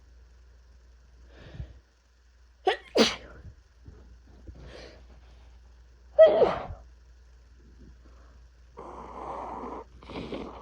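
A person with a heavy cold sneezing: two quick sharp sneezes about three seconds in, then the loudest sneeze just after six seconds. Near the end there is a stretch of breathy noise.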